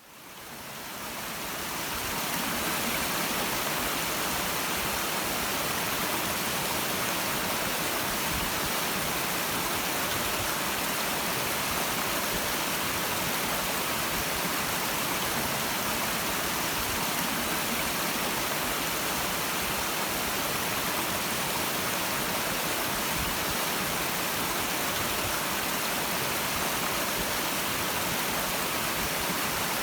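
Clear stream running over rocks, a steady rushing of water that fades in over the first couple of seconds and then holds even.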